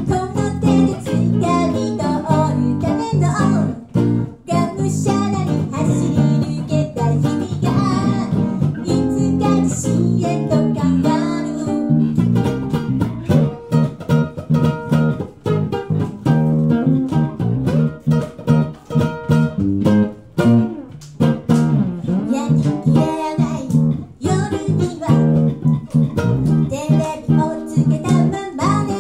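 Live acoustic set: an acoustic guitar and a second plucked string instrument play together while a woman sings into a microphone. Her voice drops out for a stretch in the middle, leaving the guitars on their own.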